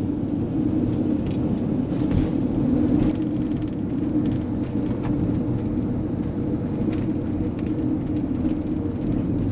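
Steady engine and road drone heard from inside a moving Winnebago View motorhome, with scattered light clicks and rattles.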